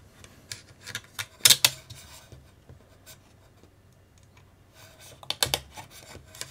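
Small clicks and knocks of plastic chassis parts and metal screws being handled and fitted: scattered taps, with a louder cluster of knocks about a second and a half in and another near the end.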